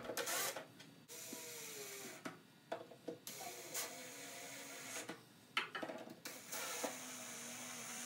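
Makita cordless drill running in about six short bursts with brief pauses between, pre-drilling and driving screws into a wooden tabletop; its whine sags in pitch under load in places.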